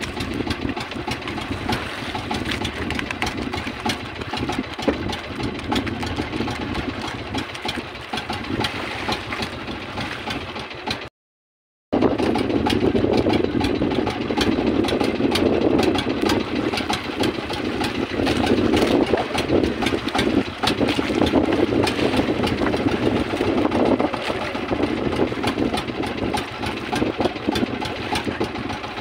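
A boat's engine running steadily, with many small knocks and rattles over it. A second of silence falls about eleven seconds in, and the engine is louder after it.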